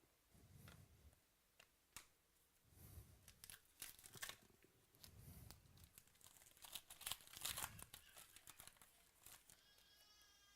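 Faint crinkling, tearing and rustling of foil trading-card pack wrappers and cards being handled, with soft thumps and crisp clicks scattered throughout.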